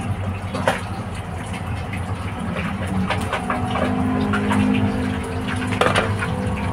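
Whole fish frying in hot oil in a metal wok, with a steady sizzle. A metal spatula scrapes and clinks against the pan as the fish are turned, sharply about a second in and again near the end.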